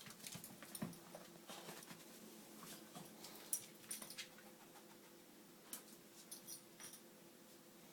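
Faint scattered clicks and taps from a small Chihuahua–Italian Greyhound mix dog moving about, in irregular little clusters over the first seven seconds, with a steady faint hum underneath.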